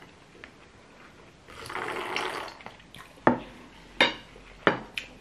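Close-up eating sounds of fufu and pepper soup eaten by hand: a wet slurping sound lasting about a second near the middle, then four sharp wet smacks in the last two seconds.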